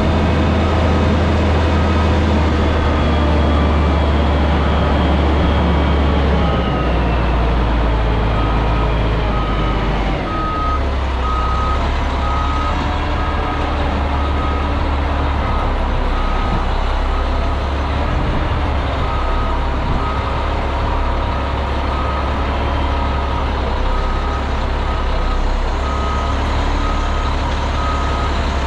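Concrete mixer truck's diesel engine running, with its backup alarm starting to beep steadily about a quarter of the way in, a little over one beep a second, as the truck reverses. The engine note drops a couple of times.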